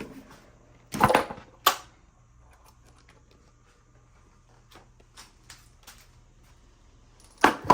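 Metal tools and engine parts being handled during an engine teardown: a few sharp clanks about a second in and again near the end, with light clicks and taps between.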